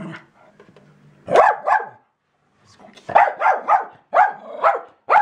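Jack Russell terrier barking in quick bursts: a few barks, a short pause, then a longer run of rapid barks.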